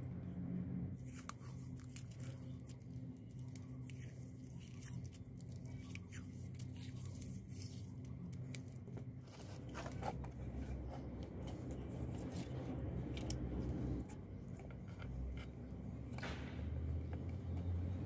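Scattered clicks, rustles and light scraping of thick insulated copper cables being handled and pushed through the core window of a microwave oven transformer, over a steady low hum.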